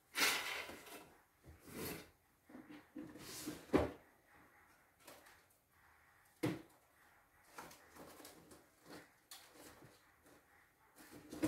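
Irregular knocks, clatter and rustling of objects being handled off-camera, with a longer rustle just after the start, a sharp knock about four seconds in and scattered single knocks after that.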